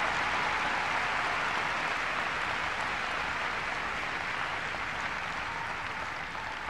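Large audience applauding steadily, the clapping slowly dying down.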